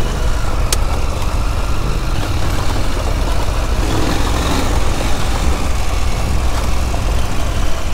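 KTM Adventure R motorcycle riding slowly down a gravel track: engine running with a steady low rumble and tyre noise on loose gravel, and one sharp click less than a second in.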